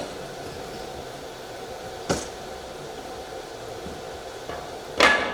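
Two sharp knocks about three seconds apart, the second louder, over a steady hum.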